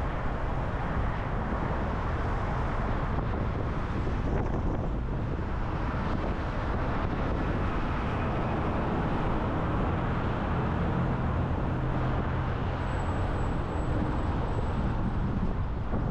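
Car driving at highway speed: steady road, tyre and wind noise with a low rumble.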